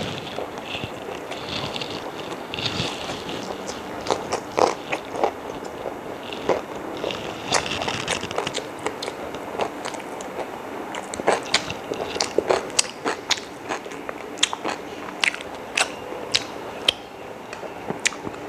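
A person chewing and biting into chicken biryani close to the microphone, with many irregular short clicks and crunches of the mouth and food.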